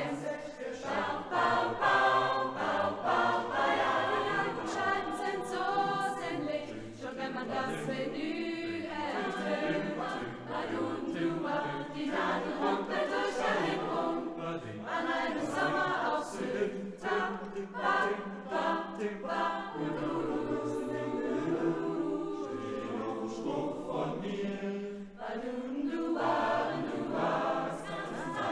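Large mixed school choir singing a swing number in many voices, in a reverberant hall.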